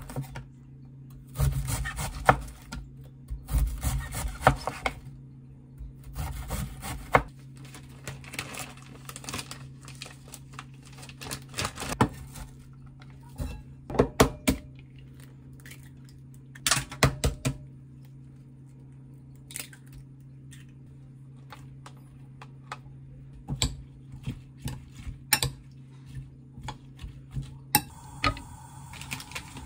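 Kitchen prep: a knife chopping a cabbage on a wooden cutting board in quick runs of knocks. About halfway, a few sharp cracks of eggs broken on a glass bowl are followed by sparse taps of a spoon stirring in the bowl. A steady hiss starts near the end.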